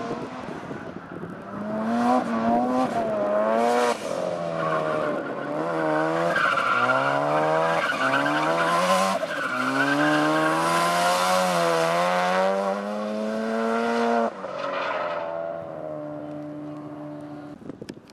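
Drift car's engine revving hard through a slide, its pitch climbing and dropping again and again with throttle and shifts, over squealing tyres. About fourteen seconds in it falls back to a lower, steadier note.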